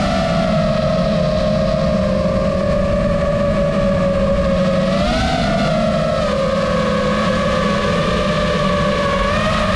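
FPV drone's electric motors and propellers whining steadily, the pitch rising briefly about five seconds in and again near the end as the motors speed up, over a low rumbling noise.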